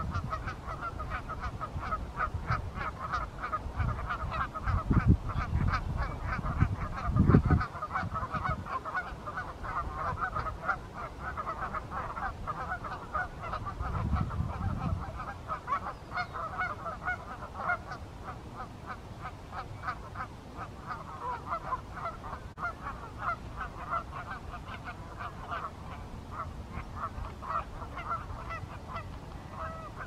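Canada geese honking over and over in dense, overlapping calls. Strong wind rumbles on the microphone in gusts, loudest about 5 and 7 seconds in and again around 14 seconds.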